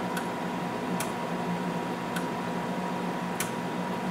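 Galaxy DX86V CB radio's receiver hissing through its speaker with a steady test tone under the noise, as the incoming test signal is dialed down to check receive sensitivity. A few short clicks, about a second apart, come from the level being stepped down.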